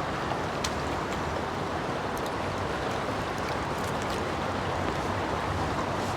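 Fast, shallow stream water rushing steadily, with a few faint clicks.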